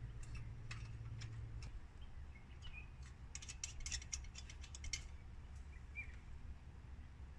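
Sharp metallic clicks and rattles of an old tin spirit stove's parts being handled, scattered at first, then a quick dense run of clicks about halfway through.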